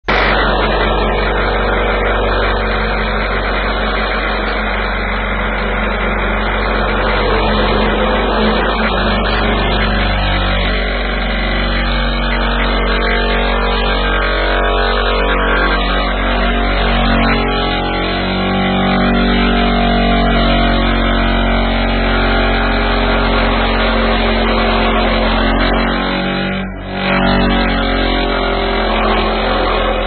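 Excavator-mounted vibratory hammer driving steel sheet piles into the ground, together with the excavator's engine: a loud, steady mechanical drone with a strong low hum. It drops out briefly about 27 seconds in.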